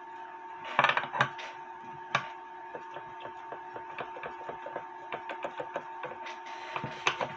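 Metal parts of a watchmaker's lathe being handled: a few light knocks in the first two seconds, then a run of small, fairly regular clicks, over a steady faint hum.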